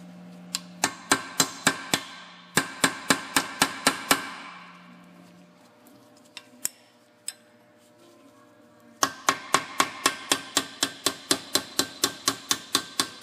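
Hammer tapping a chisel against a rusted heavy-duty snap ring in a rear wheel bearing knuckle. The taps are sharp and metallic, about four a second, with a pause partway through and only a couple of single taps before the tapping starts up again. The tapping breaks the rust bond so the ring can be turned and pulled out.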